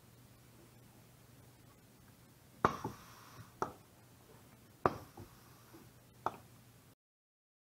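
Solenoid-actuated 5/2 pneumatic valve switching twice, each time a sharp click with a short hiss of air, followed about a second later by a lighter click.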